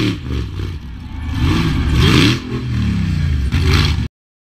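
Rock bouncer buggy's engine revving hard, its pitch rising and falling several times as it claws up a steep muddy bank, with some clatter. The sound cuts off abruptly about four seconds in.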